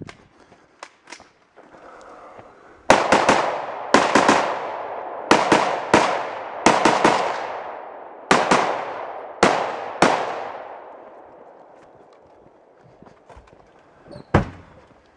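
Semi-automatic AR-style rifle firing about fifteen shots, many in quick pairs, each ringing out. One more sharp crack comes near the end.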